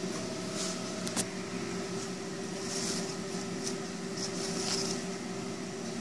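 Steady electrical hum of a machine or appliance running in a small room, with soft rustling of fresh fireweed leaves being handled in a plastic crate and a sharp click about a second in.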